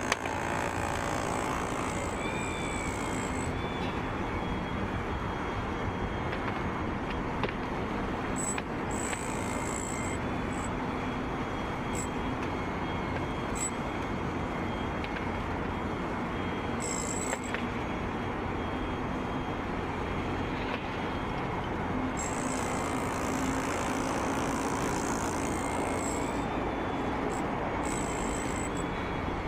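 Heavy diesel demolition machinery running steadily, a constant engine rumble with a faint high whine above it.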